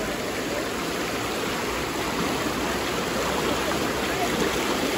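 River water rushing steadily, an even hiss of flowing current.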